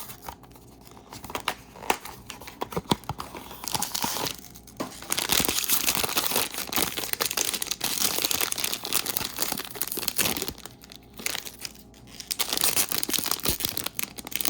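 Blind-box mini-figure packaging being opened by hand: cardboard tearing and a crinkly wrapper crumpling. A few scattered crackles come first, then about six seconds of loud, dense crinkling, then it settles to light handling sounds.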